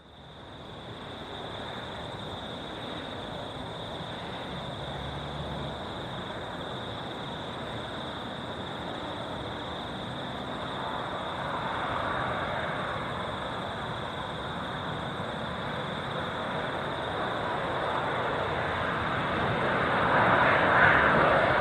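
Boeing 777-200ER jet airliner on approach, its engines a steady rumble with a constant high whine, growing gradually louder as it comes closer.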